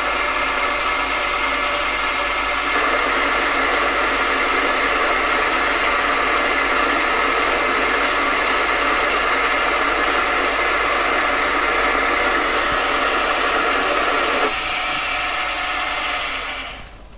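AMA 714B mini lathe's 500 W motor and gearing running steadily with a whine, taking a light 0.1 mm cut along a bar of unhardened O1 tool steel. The sound grows louder a few seconds in, eases slightly near the end, and then the lathe stops.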